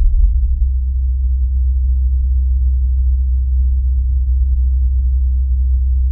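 Sped-up sonification of seismometer recordings from NASA's InSight lander on Mars: a steady, deep hum with a faint rumbling hiss above it.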